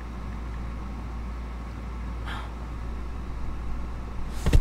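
Steady low hum of room tone, with a short faint rustle about two seconds in and a brief loud thump near the end.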